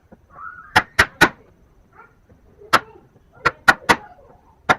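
Hammer blows in hand woodworking: sharp knocks in quick groups of three, with a single knock between the groups and another near the end.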